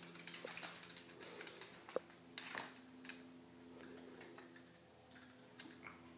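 Scattered light clicks and taps from a dog and a plastic baby walker on a hardwood floor, most of them in the first three seconds, with a sharper click about two seconds in and a short rustle just after, over a faint steady hum.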